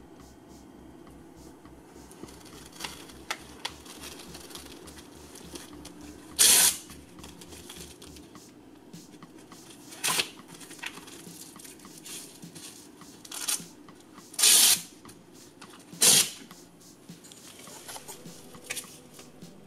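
Hook-and-loop (Velcro) straps on a rigid body brace being ripped open and pressed shut, four loud tearing rips of about half a second each with rustling of straps and fabric between them.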